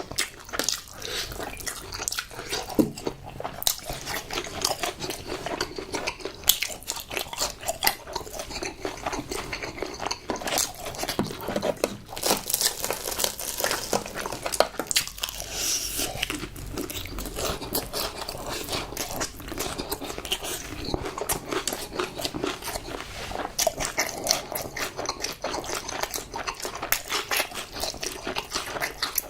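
Close-miked biting and chewing of crispy fried chicken, with many irregular crunches.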